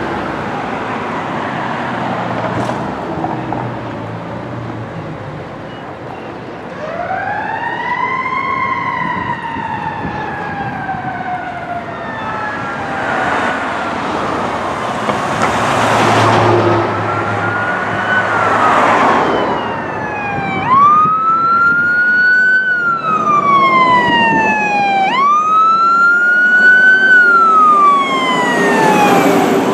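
Siren on a Pierce fire truck responding, wailing in long glides. Near the end it settles into repeated sweeps that rise quickly and fall slowly, about every four and a half seconds. In the middle, engine and road noise swell as the rig goes by.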